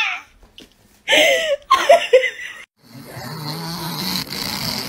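Three loud cries in quick succession about a second in, then after a brief break a pug snoring steadily.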